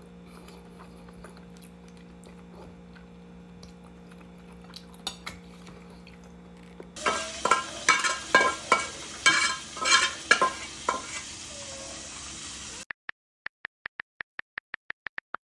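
Dishes and cutlery clinking and knocking in quick, irregular strikes, after a faint steady hum. Near the end comes an even run of short ticks, about five a second.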